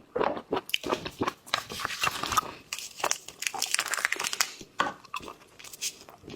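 Close-up eating of seafood: a dense run of crackling and tearing as it is pulled apart, with crunchy bites and chewing.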